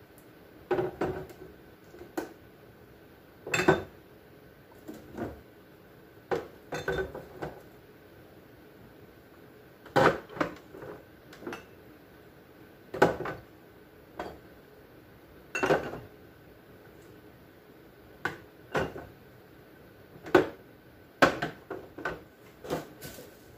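Condiment bottles and jars knocking and clinking as they are picked up and set down, in a dozen or so separate knocks spaced a second or more apart, some with a short ring.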